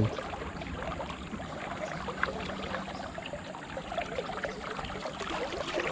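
River water running: a steady rush of current, with a few faint ticks on top.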